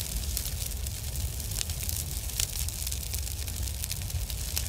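Fire burning: a steady low rumble with many scattered sharp crackles and pops.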